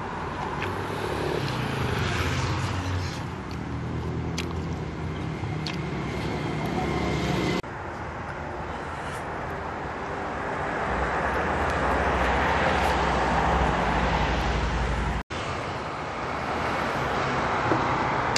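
Street traffic passing: car engines and tyre noise, with one vehicle growing louder and fading about two-thirds of the way through.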